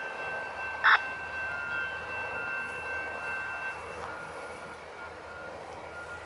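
One short, harsh crow caw about a second in, over a steady high ringing tone that stops about four seconds in, with faint short beeps repeating through the rest.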